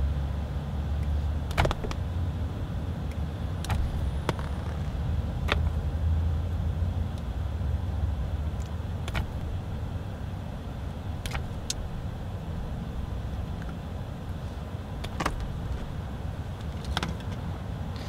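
Hand wire stripper stripping insulation off the ends of small power-cord wires, giving sharp, irregular clicks and snips about nine times, over a steady low rumble.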